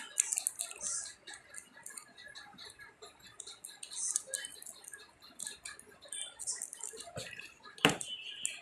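Scattered light clicks and taps from hand-feeding a baby bird, with one sharp knock near the end followed by a brief high ring.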